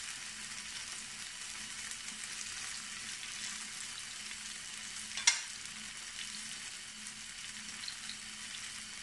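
Cubes of firm tofu frying in hot oil in a frying pan: a steady sizzle with fine crackling. A single sharp click sounds about five seconds in.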